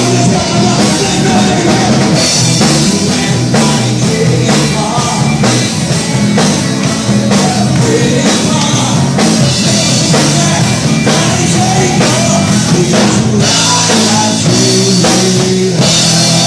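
Rock trio playing: electric guitar, bass guitar and drum kit, with a steady beat and a moving bass line.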